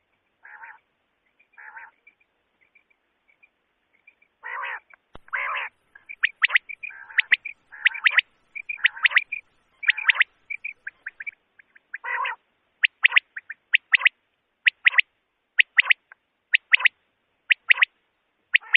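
Common quail calling: a few soft, low calls at first, then from about six seconds in, rapid sharp clipped notes in quick clusters, which settle into a run of single sharp notes about one a second near the end.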